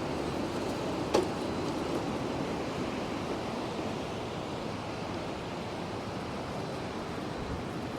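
Steady rush of river water running high over the shoals after a flood, with one sharp knock about a second in.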